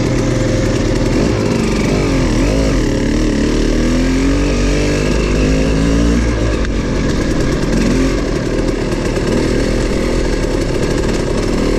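Dirt bike engine running while riding off-road, its note rising and falling several times with throttle changes.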